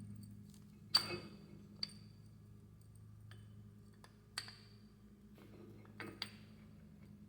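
Small metal brake parts, such as disc brake pads and their caliper hardware, clinking together as they are handled, five light clinks that ring briefly, two of them close together near the end. A steady low hum runs underneath.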